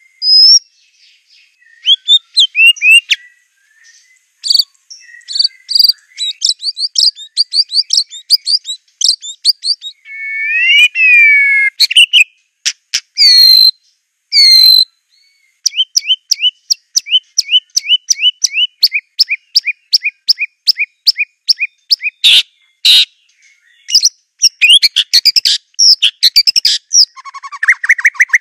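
White-rumped shama (Aceh murai batu) singing a long, varied song of whistled phrases, sweeping notes and rapid trills, with a run of evenly repeated two-part notes, about four a second, in the middle.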